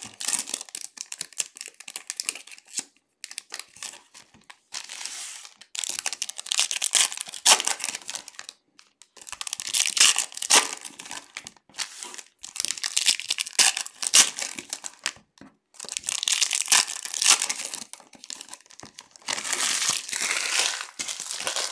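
Foil trading-card pack wrappers crinkling and tearing as packs are ripped open and handled, in about six bouts of a few seconds each with short pauses between them.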